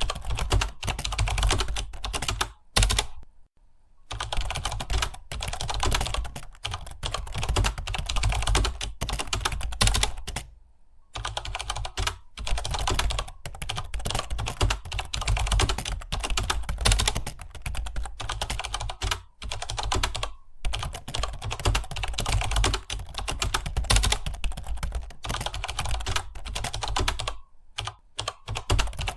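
Computer keyboard being typed on in fast, continuous runs of keystrokes, broken by brief pauses three times.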